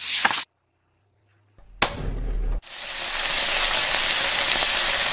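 A short whoosh, then a click with a brief low rumble. About two and a half seconds in, a steady sizzle of food frying in a pot over a fire starts, builds briefly and then holds.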